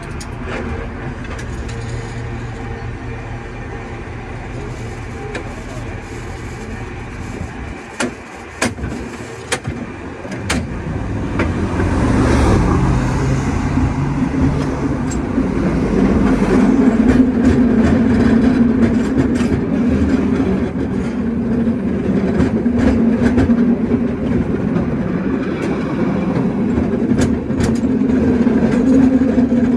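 San Francisco cable car pulling away from a stop. A few sharp clanks come about 8 to 10 seconds in, then the sound grows louder into a steady rumble with a hum and frequent rattling clicks as the car runs along the rails.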